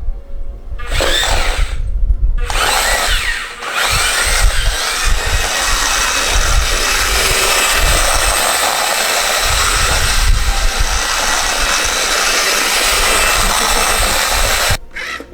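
Remote-control Chopper (C1-10P) astromech droid toy running its motors with a steady drill-like whir, with gliding electronic droid sounds in the first few seconds and low knocks underneath. The whirring cuts off suddenly near the end.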